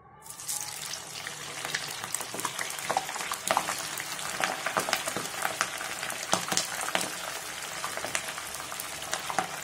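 Cauliflower florets deep-frying in hot oil: a sizzle sets in about half a second in as they go into the oil and runs on as a steady crackling of bubbling oil with many sharp pops.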